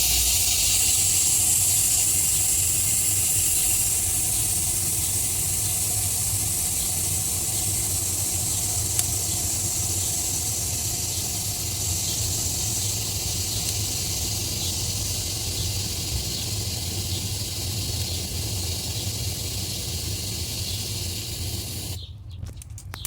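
Loud, steady rushing hiss of fire burning hard in the stone fireplace's forge hearth. It starts suddenly and fades slowly, with faint ticks about once a second.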